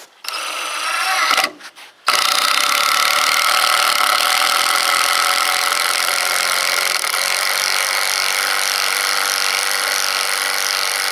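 Cordless impact driver driving a 4½-inch Hillman Power Pro star-drive wood screw into a green treated 4x4 without pre-drilling. A short burst about a second long, then after a short pause a steady run as the screw sinks into the wood.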